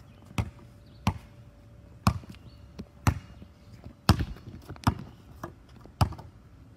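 A rubber ball being dribbled on an asphalt driveway, bouncing about once a second, seven bounces in all.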